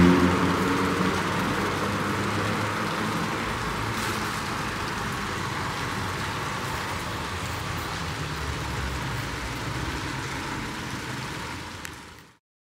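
Steady outdoor city ambience: an even, hissing wash of distant traffic and air, with a passing vehicle dying away in the first second. It fades out near the end.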